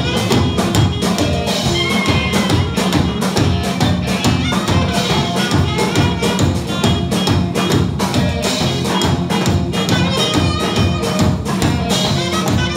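Live band playing amplified music: a drum kit keeps a steady beat under electric guitars.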